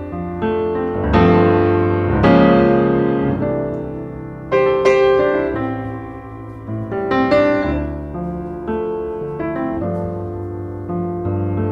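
Background piano music: slow chords struck every couple of seconds and left to ring out.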